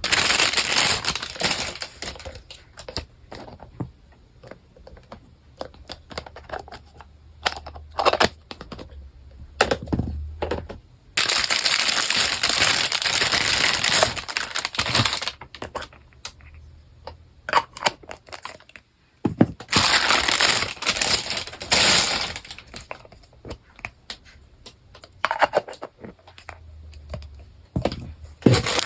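Plastic packaging crinkling and small plastic toy parts clicking as a toy kitchen set is unpacked and handled. The crinkling comes in several spells of a few seconds each, with scattered clicks in the quieter stretches between.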